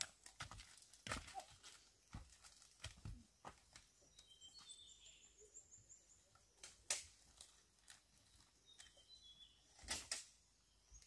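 Near silence, broken by a few faint scattered clicks and knocks, with a few faint high chirps about four seconds in and again about nine seconds in.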